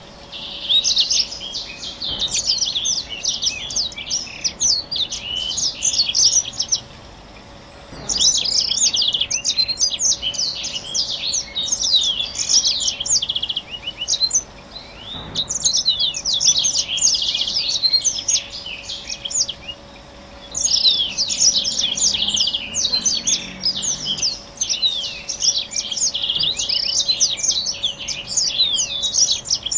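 Black-throated canary singing a fast, twittering song in long phrases of several seconds each, separated by pauses of about a second.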